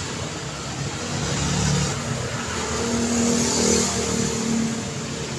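Busy road traffic: steady tyre and engine noise from passing vehicles, swelling as vehicles go by about a second and a half in and again past the middle.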